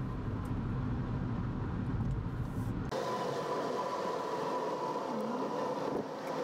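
Vehicle driving noise: a dense low rumble of engine and road. About three seconds in it changes abruptly to a lighter, steady hum with a faint whine.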